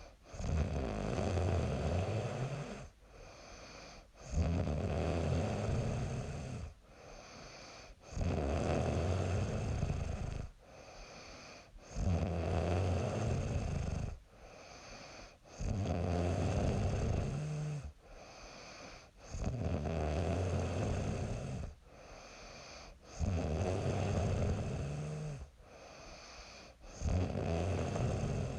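A young woman snoring in her sleep, very regularly: a loud snore of about two seconds comes roughly every four seconds, eight in all, with quieter breathing in between.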